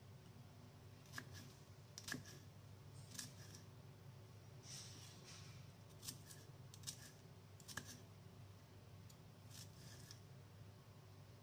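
Kitchen knife cutting shallots on a wooden chopping board: faint, sharp taps of the blade on the board at irregular spacing, roughly once a second, over a faint low hum.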